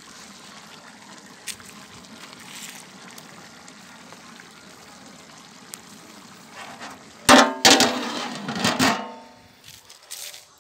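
A metal lid is set onto a large aluminium cooking pot with a few loud clangs that ring on for about a second and a half, some seven seconds in. The pot is being sealed for dum cooking of the biryani.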